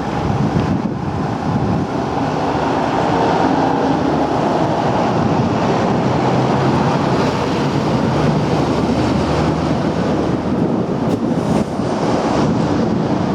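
Sanyo SPW-EJ280U 280-class packaged air conditioner running in heating mode: a loud, steady rush of fan-blown air with a low hum underneath.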